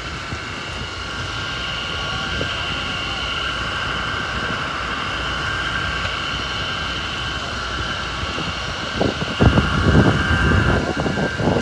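A steady engine drone with a high, level whine. Wind buffets the microphone from about nine seconds in.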